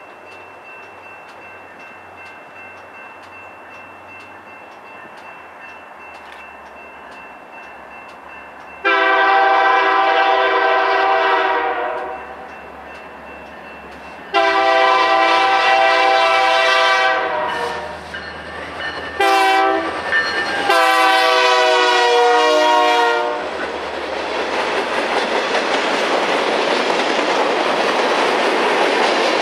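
BNSF diesel freight locomotive's horn blowing four blasts, long, long, short, long: the grade-crossing signal, sounded as the train approaches. After the last blast the train passes close, and a string of tank cars rolls by on the rails with a steady, growing noise.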